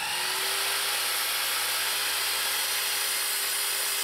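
Festool Kapex miter saw running at full speed just after start-up, a steady even whine, as its blade is lowered through a small test piece of wood for a short crosscut.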